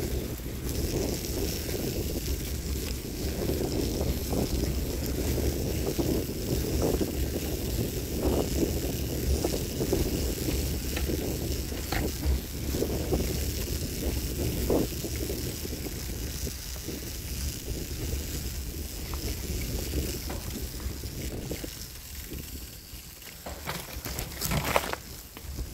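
Bicycle rolling along a dirt track covered in fallen leaves: tyres crackling over the leaves and ground, with small rattles and knocks from bumps and a few sharper knocks near the end. Steady wind rumble on the microphone throughout.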